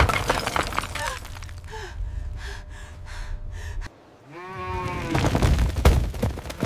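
Earthquake sound design: a sharp crash of debris at the start over a low rumble, then a woman's panting breaths, about two a second. After a brief drop, a single wavering cow's moo, then heavy low rumbling of shaking ground and running hooves, with crackling.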